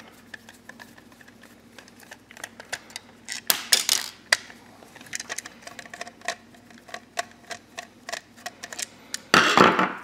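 Screwdriver turning the mounting screws of a plastic USB wall outlet, a run of light, irregular clicks and ticks of metal on plastic, with a louder scrape of handling about three and a half seconds in.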